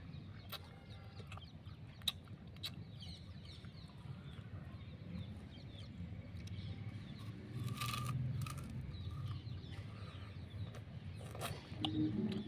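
Raw sugarcane being bitten and chewed: sharp cracking and crunching clicks, the loudest about eight seconds in. Bird calls can be heard in the background.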